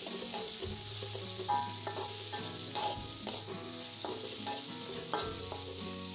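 Metal spatula stirring diced carrot, shallot and garlic frying in oil in a wok: a steady sizzle with repeated clicks and scrapes of the spatula against the pan.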